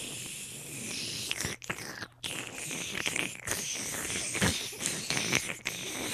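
Crackling, rustling munching noises with many small clicks and a few brief breaks, as a teddy bear puppet is made to eat.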